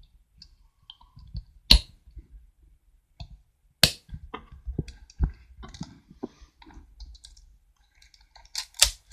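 Small sharp clicks and rattles from handling a Canon AV-1 35mm film camera while a 4SR44 battery is fitted into its battery compartment. There are a few loud single clicks and a cluster of clicks near the end.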